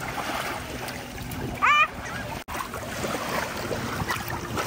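Light surf lapping in the shallows of a sandy beach, with wind on the microphone. About a second and a half in, a short high call with a wavering, rising pitch stands out as the loudest sound, and the sound cuts out for an instant just past halfway.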